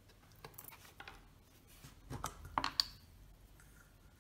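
Light clicks and clinks of small metal camera-shutter parts and a small round container being handled on a workbench. The loudest pair of sharp knocks comes about two and a half seconds in, the second with a short high ring.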